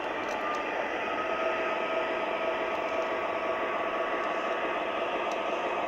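Model train locomotive running slowly on the layout: a steady mechanical hum and hiss from its motors and sound system, with a faint steady whine that comes in about a second in.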